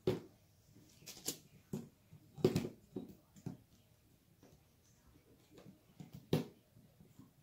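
Small plastic acrylic paint bottles clicking and knocking together as a hand picks through them: a string of irregular sharp knocks, the loudest at the start and about two and a half seconds in, with another near the end.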